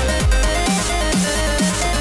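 Electronic music with a steady kick-drum beat, about two beats a second, over deep bass and a repeating synth pattern.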